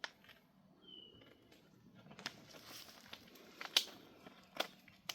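A basset hound chewing a plastic water bottle, the plastic crackling in sharp, irregular crunches, the loudest a little under four seconds in. A bird gives one short whistled chirp about a second in.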